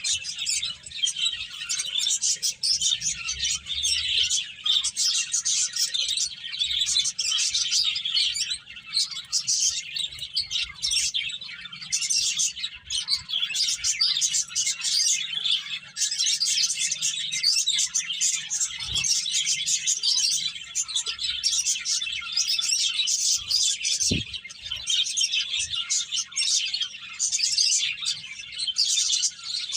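A flock of pet finches chirping: many short high chirps overlapping without pause.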